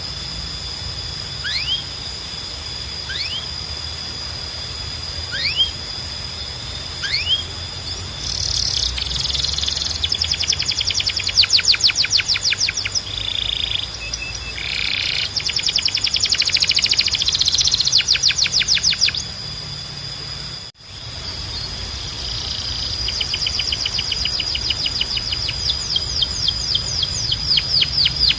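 Canary singing: first single rising whistled notes every second or two, then from about eight seconds in fast trilled rolls of quickly repeated sweeps. The song breaks off abruptly about two-thirds of the way through, then the trills start again and build towards the end. A steady high tone and a low hum run underneath.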